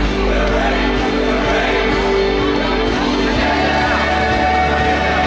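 Choir singing held chords over an accompaniment; the bass shifts to a new note about three and a half seconds in.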